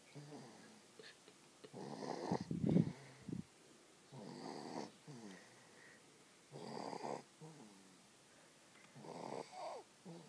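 Snoring in a slow, regular rhythm: four snores about two and a half seconds apart, each drawn-in snore followed by a shorter, softer falling breath out. The second snore, about two seconds in, is the loudest and ends in a deep, rattling snort.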